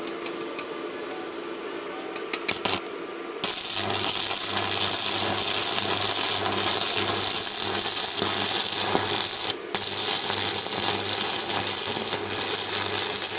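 Stick-welding arc from a Mächtz MWM-355 TB inverter set to 300 A in turbo mode: a few clicks as the electrode is struck, then about three and a half seconds in the arc catches and crackles and hisses steadily over a low hum, breaking off for a moment about nine and a half seconds in. At this current the arc burns straight through the metal.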